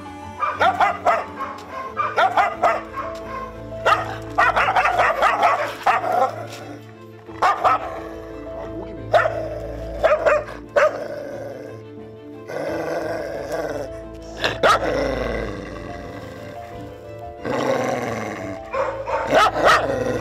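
Dog calling out in repeated loud bouts of barks and cries, with a longer falling cry about two-thirds of the way through, as it reacts against a leash held out to it. Background music runs underneath.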